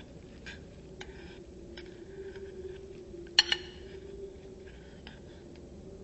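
Metal spoon clicking and scraping in a bowl of puree, with scattered small clicks and one sharp clink about three and a half seconds in. A faint steady low tone sits underneath.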